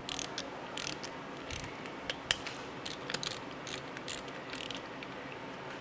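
Torque wrench ratcheting in short, irregular runs of clicks as cam plate screws are tightened to 120 inch-pounds.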